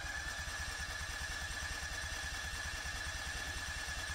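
Electric starter of a propane-fuelled 15 kW Honda generator cranking the engine continuously: a whine that has just spun up and holds steady over an even mechanical throb. The engine is being cranked without the choke and is not catching.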